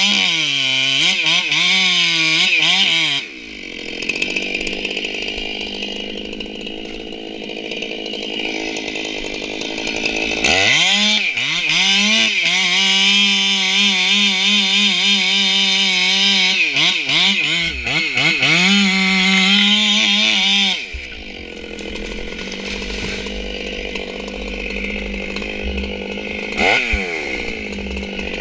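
Ported, Insane-O-ized Stihl MS461 two-stroke chainsaw cutting into a tree trunk at full throttle, its pitch sagging and recovering as the chain loads in the cut. It drops back to a quieter idle about three seconds in, makes a second long cut from about ten to twenty-one seconds, then idles with one short rev near the end.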